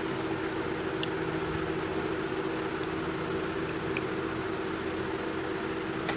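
Steady mechanical hum with a strong low tone, and a few faint clicks.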